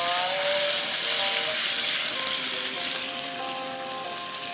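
Food frying in a pan with a steady sizzle, easing off a little about three seconds in.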